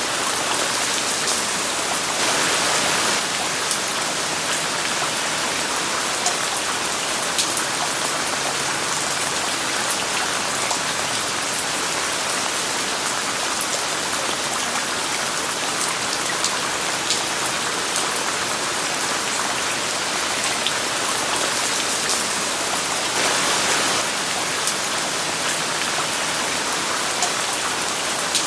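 Steady rain falling: a dense, even hiss with scattered sharp drop ticks, swelling a little louder twice for about a second.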